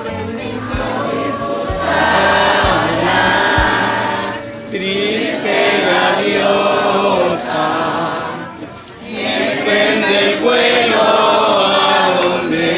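A group of people singing a hymn together, in phrases with short breaks about four and a half and nine seconds in.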